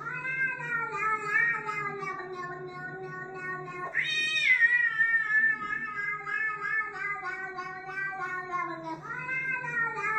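Long drawn-out cat meows played back from a YouTube video over the computer speakers, over background music. Three meows follow one another, the middle one starting sharply about four seconds in and loudest and highest.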